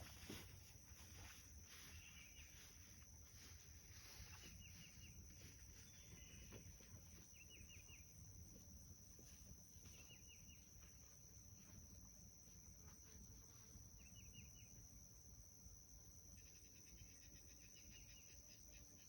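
Faint outdoor insect chorus: a steady high-pitched cricket drone, with short bursts of quick chirps every few seconds.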